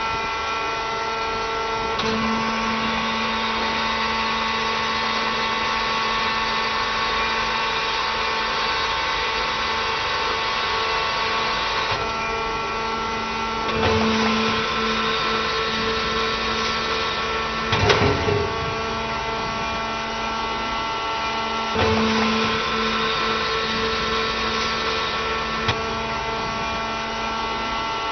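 ŽĎAS CPB 100 mobile scrap baling press running, a steady mechanical whine with several tones whose pitch and strength change every few seconds. A short metal clatter about eighteen seconds in.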